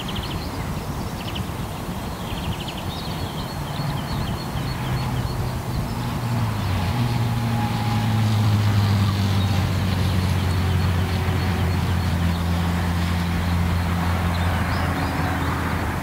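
Constant rushing of motorway traffic, with a low engine drone that swells about six seconds in and stays strong, as of heavy vehicles passing. Small birds chirp faintly over it in the first few seconds.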